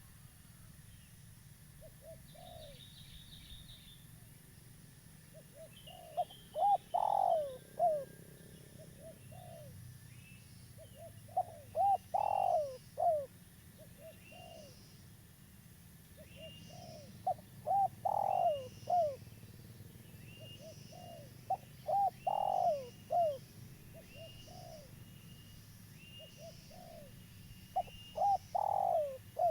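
Spotted dove (tekukur) cooing: five phrases, roughly one every five seconds, each a quick run of short coos around one longer, louder note. Small birds chirp faintly and steadily in the background.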